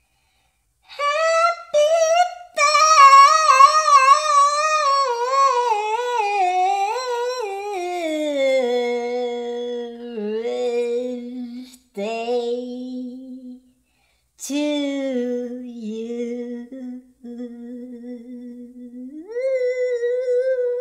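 A wordless singing or humming voice, high and wavering. It slides down in pitch over several seconds, then holds lower steady notes with a few short breaks, and steps back up near the end.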